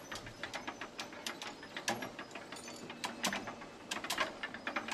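Hand-cranked lock-gate winch (crab) on the Rideau Canal being turned, its gears and ratchet pawl making a run of sharp metallic clicks, several a second, with louder bursts every second or so.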